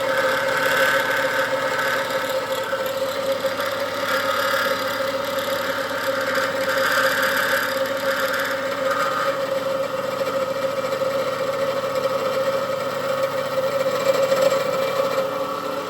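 Electric machine tool running at a steady speed with a constant hum while drilling holes in a metal steering-shaft bracket; a higher cutting noise swells and fades several times over the first nine seconds or so.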